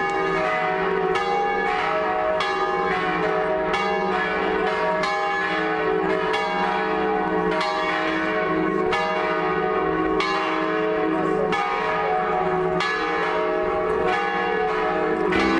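Church bells ringing, several bells at different pitches sounding together, with a fresh strike about once a second.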